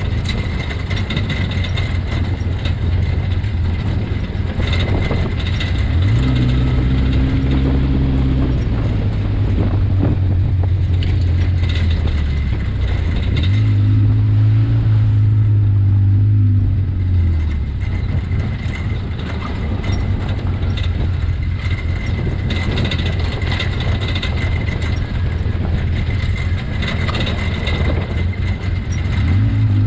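Side-by-side UTV engine running under way on a rocky dirt trail, its pitch rising as the throttle opens about six seconds in, again around thirteen seconds in, and near the end, with rattles and knocks from the machine jolting over the rough ground.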